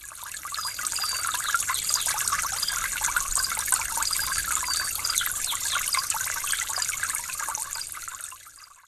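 Water trickling steadily, with short high chirps over it. It fades out near the end.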